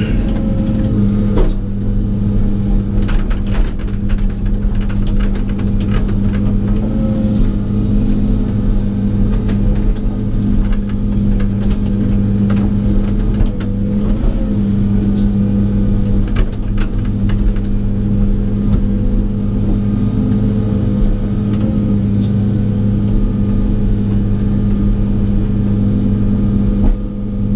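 Excavator's diesel engine running steadily, with scattered knocks and clunks over it.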